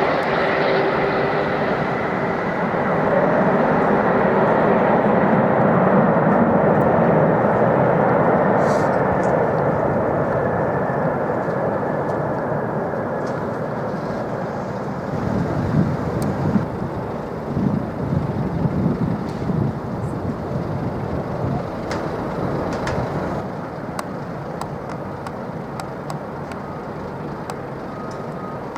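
Jet airliner's engines roaring as it passes close by, the noise swelling to its loudest about six seconds in and then slowly fading away. Low rumbling bumps come and go midway through the fade.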